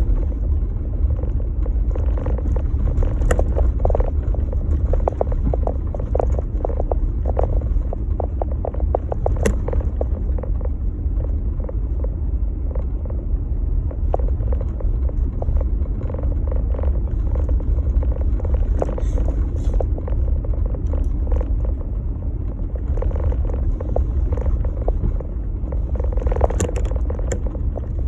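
Jeep Gladiator driving through snow: a steady low rumble, with frequent short crackles and crunches.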